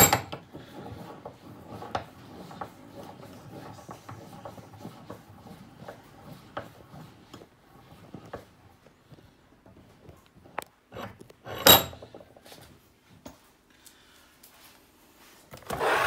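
Handling noise as a phone is positioned on a workbench beside a vacuum cleaner: rubbing and scraping with scattered light clicks, one sharper knock later on, and a longer rustle at the very end.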